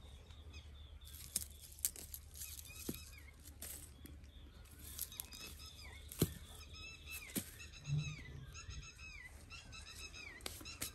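Birds calling outdoors, many short arching calls repeated, growing busier in the second half. Scattered sharp clicks and a steady low rumble run underneath.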